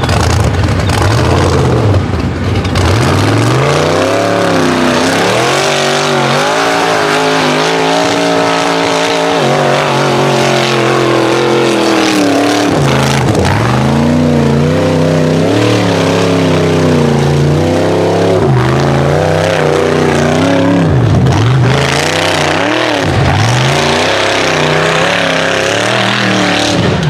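Rock bouncer's engine revving hard as it climbs a steep dirt hill, the revs rising and falling over and over, with several sharp drops as the throttle is lifted and reapplied.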